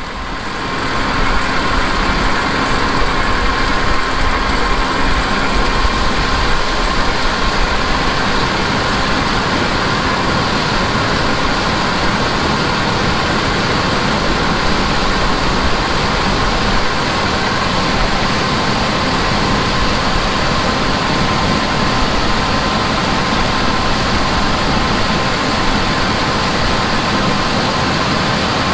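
Steady running noise of a John Deere S680 combine harvesting corn, with a Deere 8310R tractor and grain cart running alongside, carrying a steady tone. It comes up about a second in.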